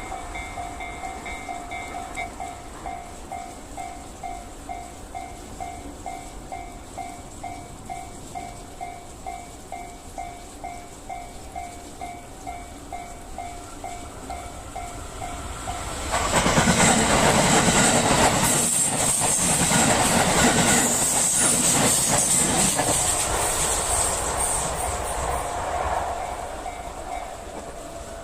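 Japanese level crossing's old-style gong bell clanging at a steady beat of about two strokes a second. A little past halfway a train comes through loud for about ten seconds, wheels clattering over the rail joints, then fades, with the bell still ringing under it.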